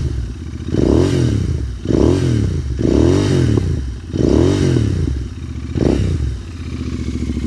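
Royal Enfield Continental GT650's 648 cc parallel-twin engine through Gursewak slip-on exhausts with the dB killers removed, blipped five times about a second apart, each rev rising and falling quickly. The note is deep and bassy, and it drops back to idle near the end.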